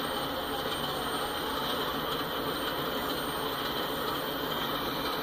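Freight cars rolling past on the rails: a steady rumble and rattle of wheels on track as the end of a freight train goes by.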